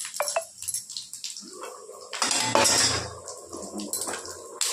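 Aluminium cooking pots and utensils clinking against each other on a gas stove, with a short ringing clink near the start. About two seconds in comes a second-long burst of hissing from the hot pan.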